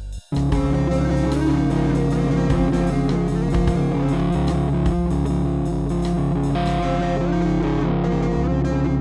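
Rock band recording with electric guitars over bass and drums. After a brief near-silent break just at the start, the full band comes in and plays on steadily.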